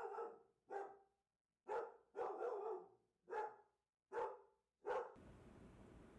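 A dog barking, about six or seven barks spaced roughly a second apart, stopping about five seconds in.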